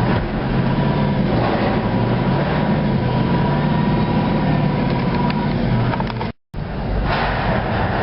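Heavy earthmoving machine's diesel engine running under work, a steady low drone with a thin steady whine above it that fades out about five seconds in. The sound cuts out for a moment about six and a half seconds in, then resumes.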